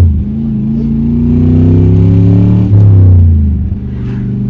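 Carbureted 4.8 L V8 with headers in a 1999 Chevrolet S10, heard from inside the cab, pulling hard under acceleration with its pitch climbing. About two and a half seconds in there is a gear change through its four-speed manual, and the engine gets louder again before easing off near the end.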